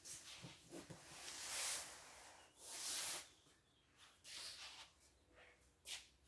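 Quiet scraping and rustling as a cardboard box is pushed and handled on a padded moving blanket. There are a few short hissing scrapes and a small click near the end.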